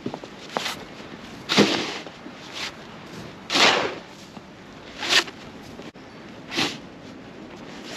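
Snow being shovelled: a short scraping stroke about every one and a half to two seconds, five strokes in all.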